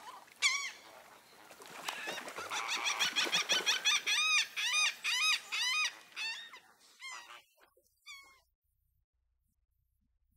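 A bird calling: a fast series of short honking calls, about three a second, which thin out and stop about eight seconds in.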